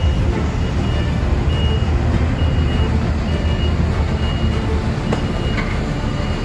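Heavy diesel construction equipment running with a steady low rumble while a reversing alarm beeps about once a second, the beeps stopping a little past halfway: a machine backing up on the paving job.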